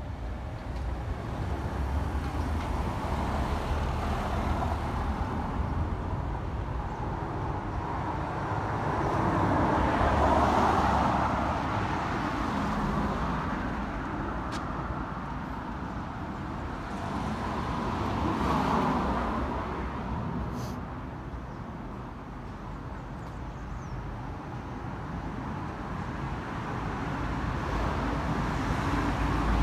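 Street traffic: cars passing one after another over a steady low rumble, the loudest passes about ten and nineteen seconds in.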